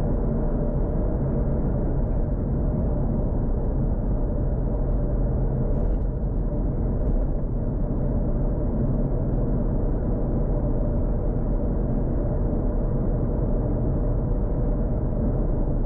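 Toyota Supra MK4's turbocharged 2JZ inline-six running at a steady engine speed: a constant low drone with no revving or gear changes.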